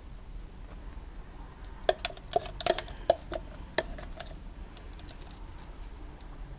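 A quick cluster of light clicks and taps from plastic cups and a stir stick being handled, with a few sharper knocks, between about two and four seconds in.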